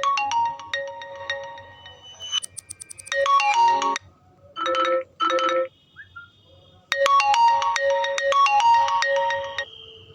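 Instrumental mobile-phone ringtone playing through the phone's speaker: a quick melody of bright, sharp-edged notes. It cuts off and restarts several times, with two short lower tones in the middle, and plays again from about seven seconds in.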